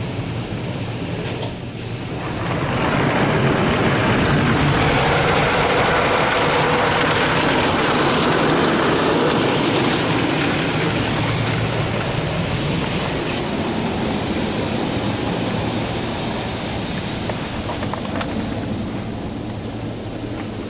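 NuStar Soft Touch Plus automatic car wash working over the truck, heard from inside the cab: a loud rush of water and wash machinery over a steady low hum, swelling about two seconds in and easing off after about thirteen seconds.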